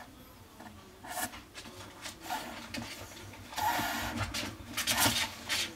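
A puppy's claws scratching and tapping on the plastic grille floor and glass wall of a display case, in scattered short scrapes with a longer scrabble near the middle.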